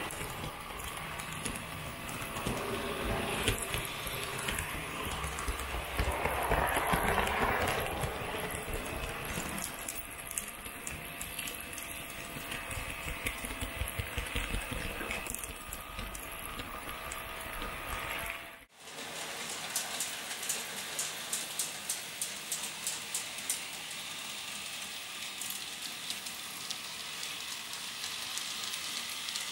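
H0-scale model trains running on the layout. The first part is a low, rough rattle of wheels on track, heard from a camera riding on a train. After a sudden cut about two-thirds of the way through, it becomes a lighter, steady whirr with rapid, regular clicking.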